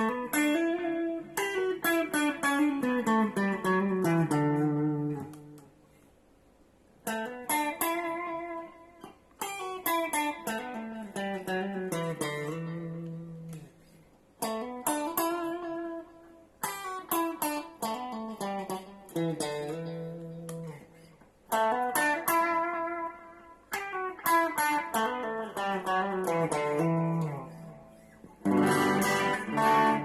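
Ibanez RG350EXZ electric guitar played through an AX3G multi-effects unit into a small Fernandes practice amp, picked up by a phone microphone. It plays lead phrases of single notes running downward in pitch, each a few seconds long, with short pauses between them. A louder, fuller ringing passage starts near the end.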